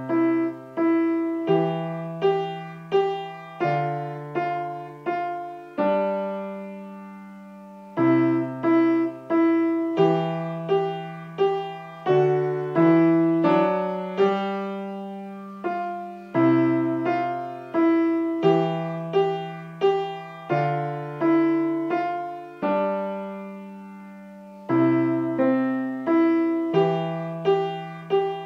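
Yamaha piano played with both hands: a simple, even-paced melody over lower bass notes, each phrase ending on a long held chord that dies away, about six and again about twenty-two seconds in.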